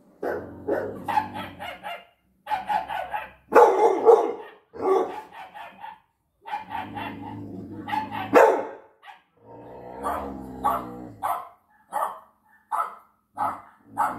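Six-month-old pit bull barking in quick volleys of several barks separated by short pauses, then single barks under a second apart near the end.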